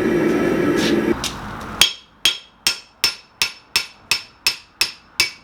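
Hammer blows on hot steel on an antique anvil, about ten regular strikes at a steady pace of nearly three a second, starting about two seconds in. Each strike rings only briefly because the anvil is bedded in cured silicone on its stand, which damps it to a pretty dead sound. Before the blows, a steady roar cuts off about a second in.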